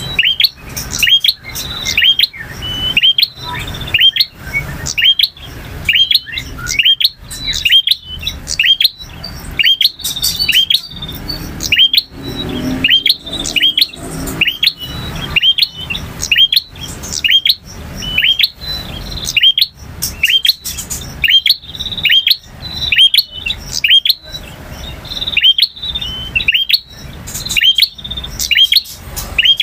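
Male prinia (prenjak) singing: a long, unbroken run of loud, sharp chirping notes, about two a second, each flicking upward in pitch.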